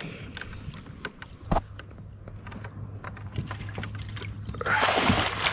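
Water splashing and slapping around a fishing kayak while a hooked snakehead is fought at the side, with one sharp knock about a second and a half in. A much louder burst of splashing starts about four and a half seconds in.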